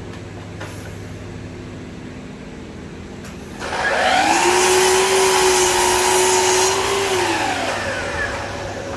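Festool sliding mitre saw starting up about three and a half seconds in and cutting through a plywood board with a steady whine and loud cutting noise, then the blade winding down with a falling whine. A steady low hum runs underneath before the cut.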